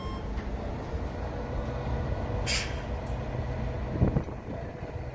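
Heavy machinery running with a steady low rumble, a short hiss of released air about two and a half seconds in, and a single thump about four seconds in.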